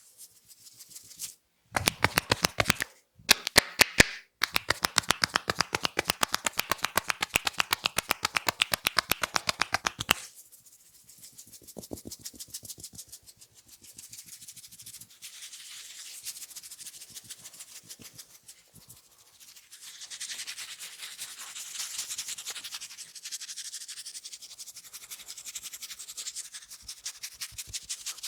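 Head massage by hand: a few sharp slaps, then a fast, even run of hand tapping on the head that stops about ten seconds in. After it, softer fingertip scratching and rubbing on the hair and scalp, growing louder about two thirds of the way through.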